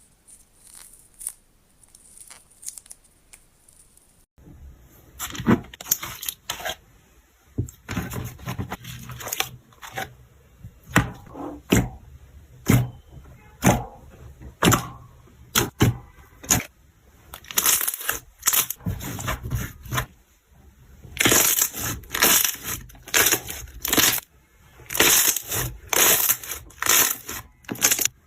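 Slime being squeezed and pressed by hand, crackling and popping in quick runs of sharp snaps. It starts with faint clicks, and about four seconds in it turns much louder and denser.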